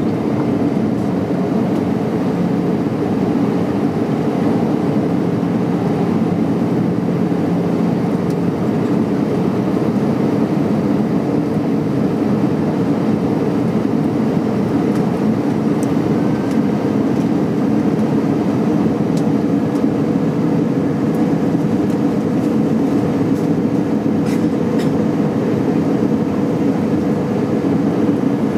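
Cabin noise inside an Airbus A319-112 descending to land: the steady, even drone of its CFM56 turbofan engines and the airflow past the fuselage. A faint low hum fades out early on, and a higher hum comes in about halfway through.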